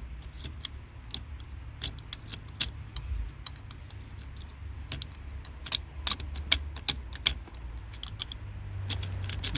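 A metal pick scraping and clicking against the F150 shifter knob's trim cap as old glue is picked out of it: many quick, irregular ticks and scrapes, with a low steady hum underneath.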